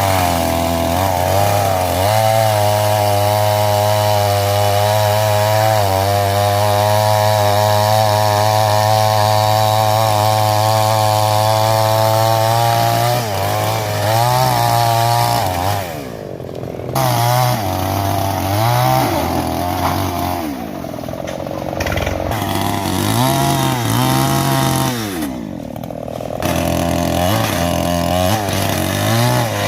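Petrol chainsaw running at steady high revs, then its revs dip and rise again and again over the second half before climbing high again near the end.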